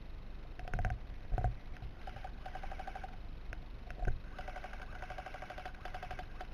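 Airsoft electric gun firing in rapid full-auto bursts, a fast rattle of about a dozen shots a second, with a longer burst in the second half. A few dull thumps of handling on the camera are mixed in.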